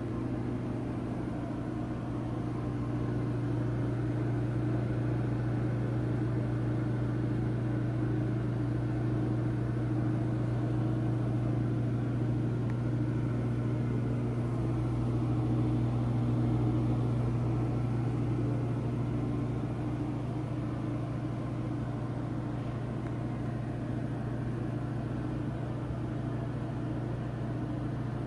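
Penn Zephyr ceiling exhaust fan running steadily, giving a strong, even low hum with fainter steady tones above it.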